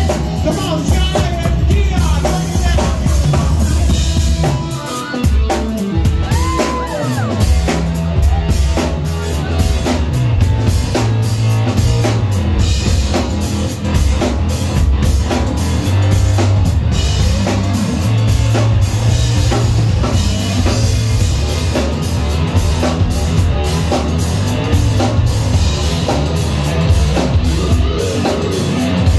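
Live band playing with drum kit, bass guitar and keyboards. Women's voices sing over the groove for the first few seconds, then it carries on as an instrumental passage with the keyboards to the fore.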